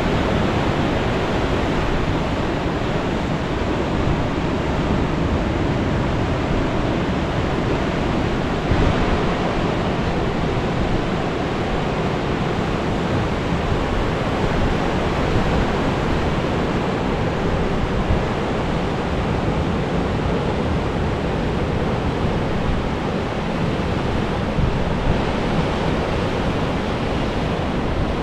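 Ocean surf breaking and washing up the beach below the cliffs: a steady, unbroken rush of water, with wind buffeting the microphone.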